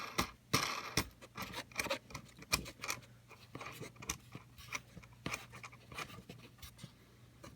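A nut being threaded by hand onto a bolt through the canard: irregular small metal clicks and scrapes, with a few louder taps.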